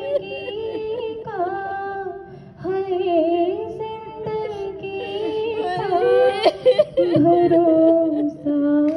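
A female voice singing a salam, a devotional poem, in long held notes that waver and glide, with a short breath-pause about two and a half seconds in.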